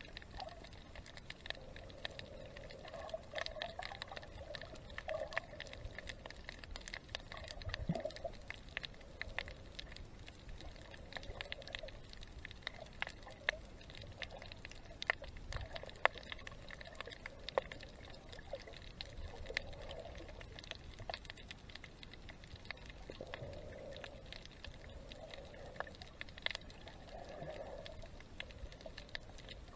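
Underwater sound while snorkeling: a steady crackle of many small scattered clicks, with soft swells of water noise every few seconds.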